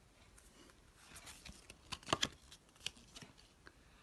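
Pokémon trading cards being handled: a scattering of light flicks and taps as cards are moved through the stack, the loudest pair about two seconds in.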